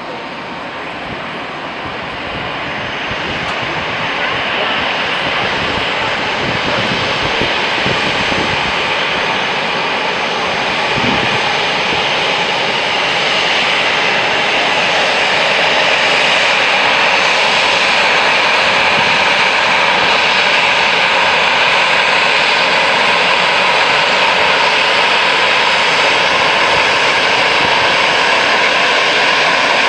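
Jet engines of a British Airways Airbus A320-family airliner on its landing roll just after touchdown: a steady jet noise that grows louder over the first fifteen seconds or so, then holds.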